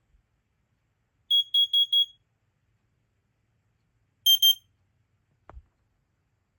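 First Alert CO5120PDBN combination smoke/CO alarm sounding its carbon-monoxide pattern: four quick, high-pitched beeps. About two seconds later a second alarm with a harsher tone, an interconnected Fyrnetics 1285 smoke alarm set off by the PDBN's CO signal, sounds two short beeps.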